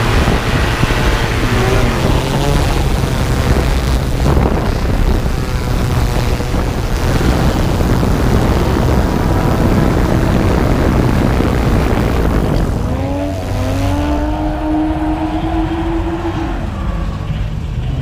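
Quadcopter rotors running close to the microphone, a steady hum with a rushing wash over it, while drift cars' engines rev and wail in the background. About two-thirds of the way through, one engine note climbs and holds for a few seconds, and the rushing drops away.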